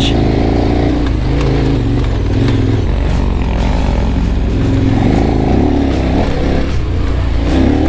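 KTM 1190 Adventure R's V-twin engine running under load on a dirt trail, its note rising and falling as the throttle is worked.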